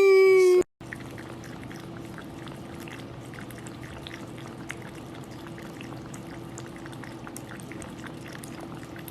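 A loud falling tone with many overtones cuts off abruptly within the first second, then a domestic cat purring steadily close up.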